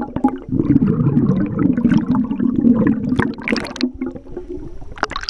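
Swimming-pool water heard underwater through a GoPro's waterproof housing: a muffled churning and bubbling with scattered sharp clicks, as children kick and move about in the water. It thins out about four seconds in, with one sharp click near the end.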